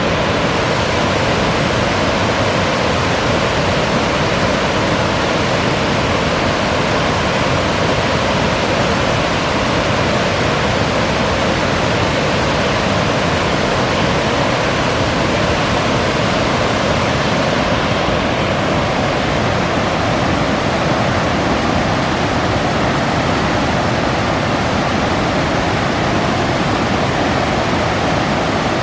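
Water pouring over the Chute à Morin falls on the L'Assomption River: a loud, steady rush.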